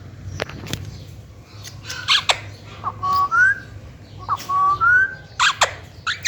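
Pet green parrot calling: short sharp squawks, and twice a whistled phrase of a steady note followed by a rising note.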